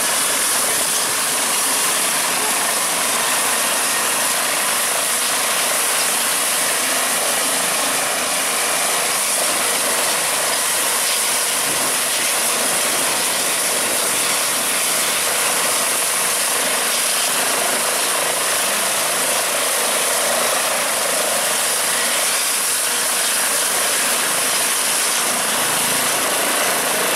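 Eurocopter EC135 helicopter running on the ground before take-off, its twin turbine engines and turning main rotor making a loud, steady noise with a strong hiss.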